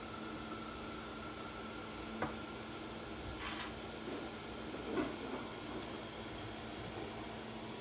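Quiet steady hiss, with two soft knocks about two and five seconds in and a brief sharper hiss about three and a half seconds in.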